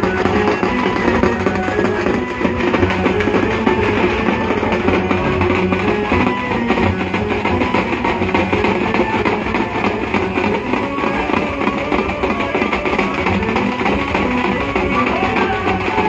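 A drum troupe playing large double-headed hand-carried drums together in a fast, dense, continuous rhythm, with a sustained melody line over the drumming.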